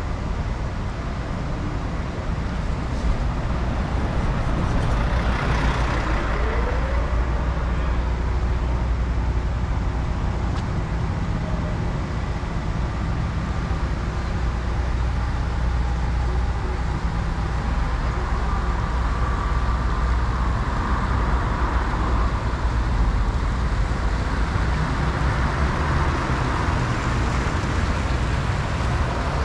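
City street traffic: motor vehicles running and passing with a continuous low rumble of engines and tyre noise. About six seconds in, one engine's pitch rises and falls.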